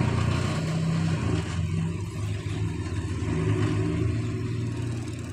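Heavy diesel engine of an excavator running with a steady low hum, gradually fading toward the end.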